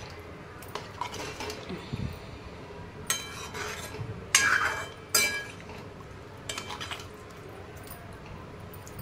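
Metal ladle stirring a thin curry in a metal kadhai, knocking and clinking against the pan several times, with short ringing clinks between about three and seven seconds in.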